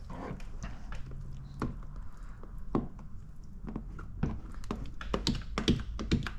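Irregular light taps and clicks as paint protection film is handled and pressed into place on a truck fender, over a steady low hum.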